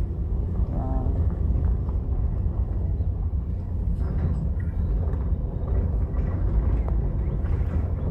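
Car driving slowly, a steady low rumble of engine and tyres with no sharp events.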